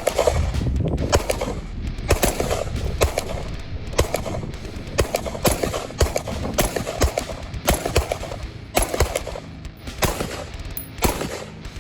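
Gunshots at an outdoor range: a long run of sharp, irregularly spaced shots, about one or two a second, from firearms being fired on the line.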